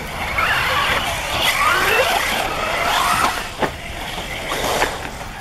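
1/8-scale electric RC off-road buggy motors whining, the pitch rising and falling with the throttle. Two sharp knocks come about three and a half and five seconds in.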